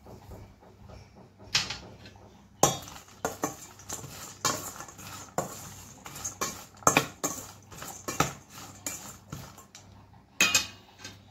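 Dried fish, chopped onion and salt being stirred and tossed in a stainless steel bowl, scraping and clinking against the steel in irregular strokes, with a louder clatter near the end.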